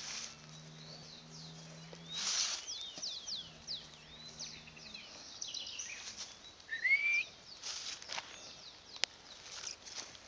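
Small birds chirping and calling throughout, with one clear rising call about two-thirds of the way through. A low steady hum sounds for the first couple of seconds and again around the middle, and a few sharp clicks come near the end.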